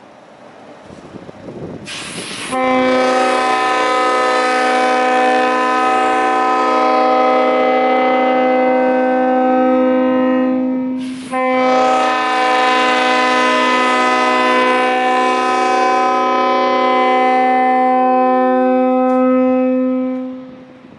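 Leslie S-5 five-chime locomotive air horn blown on compressed air. A rush of air as the valve opens, then a loud chord of several steady tones held for about eight seconds. After a brief break comes a second long blast of about nine seconds that cuts off near the end.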